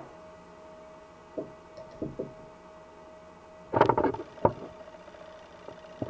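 A few light clicks and knocks of disassembled .22 rifle parts being handled and set down, with a louder bout of clatter about four seconds in. A faint steady whine from the cheap camera runs underneath.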